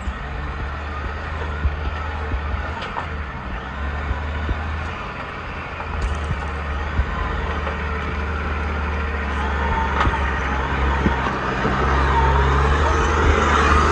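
Engine of an off-road competition truck running with a steady low drone, growing louder toward the end.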